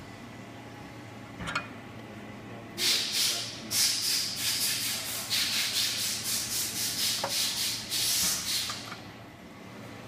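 Fine-flame jeweller's soldering torch hissing in quick, uneven pulses as it heats a small clasp part held in tweezers. It starts about three seconds in and stops about a second before the end.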